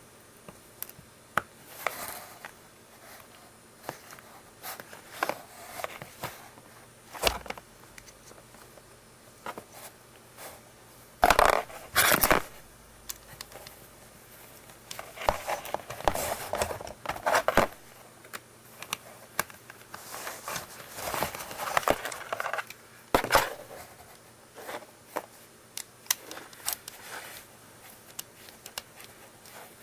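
Hands working on the plastic parts of a Panasonic oral irrigator: scattered sharp clicks with short bursts of scraping and rustling, the loudest about eleven to twelve seconds in.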